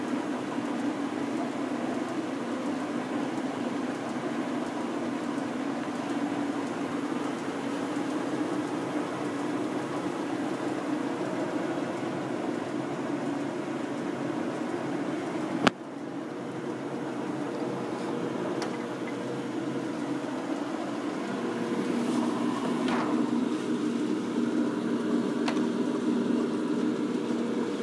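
American Pacemaker engine lathe running steadily under power, its geared headstock and lead screw turning with the carriage set to feed for a coarse thread. A single sharp knock comes about halfway through, and a few lighter clicks follow near the end.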